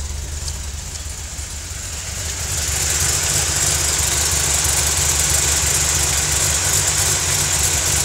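2005 Mustang engine with shorty headers and a Flowmaster exhaust idling, with a fast ticking hiss over the rumble that grows louder about two and a half seconds in; the owner takes it for a possible exhaust leak.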